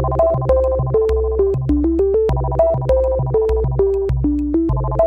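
Background music: an electronic synthesizer track with a short melody looping over a steady bass and a regular beat.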